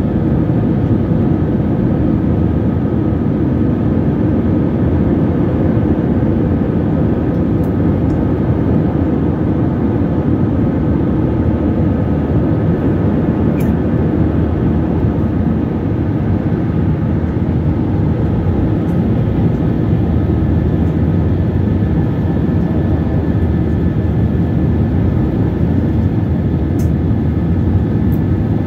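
Cabin noise of an Airbus A321 climbing after takeoff: a steady low rumble of the jet engines and rushing air, heard from a window seat over the wing, with a faint steady whine above it.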